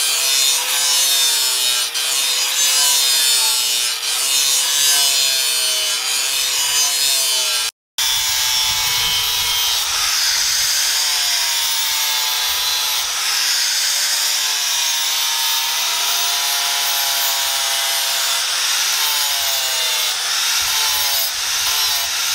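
Angle grinders grinding a steel chainsaw bar: a loud steady grinding hiss over a motor whine that dips and rises as the disc bites into the steel. About a third of the way in the sound cuts out for a moment, then grinding carries on.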